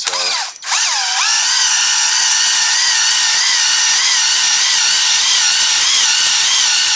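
Cordless drill spinning a ball hone inside a cylinder bore of a Cummins 6BT diesel block, deglazing the cylinder wall. A short first burst of the motor, then a steady high whine whose pitch dips briefly as the hone loads up and then holds.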